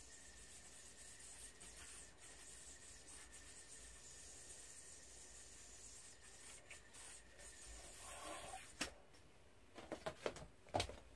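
Faint rubbing of yoyo string as a yoyo spins through a string trick, over a low steady hiss. In the last few seconds, a rustle and a handful of sharp clicks as the yoyo is handled and caught; the loudest click comes about a second before the end.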